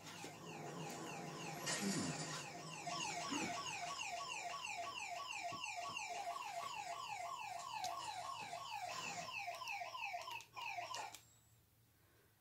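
Electronic alarm sounding a rapid, evenly repeating series of rising whoops, about two or three a second, that cuts off abruptly near the end.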